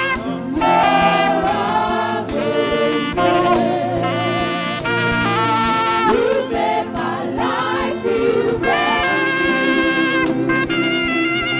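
Live saxophone playing a wavering melody with bends and glides, backed by trumpets and choir singing over a steady beat.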